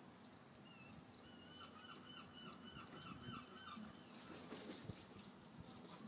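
Gull calling faintly in a quick run of about ten short, clipped notes, roughly four a second, after one lone call under a second in. A brief rush of noise follows about four seconds in.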